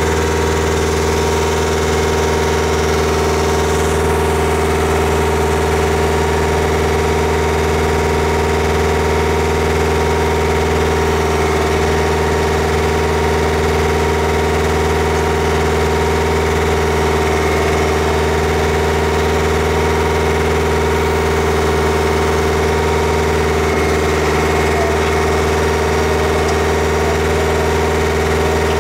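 Engine of a Techno Drill TD308 piling and drilling rig idling steadily at an even pitch.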